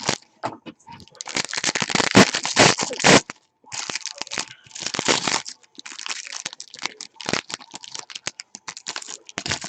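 Foil wrapper of a trading card pack being torn open and crinkled, in several crackly bursts, the loudest between about one and three seconds in, with scattered small crackles and clicks in between.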